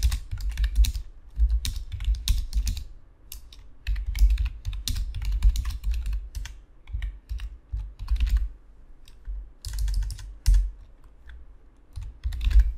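Typing on a computer keyboard: uneven runs of keystrokes with short pauses between them, each key press carrying a low thud.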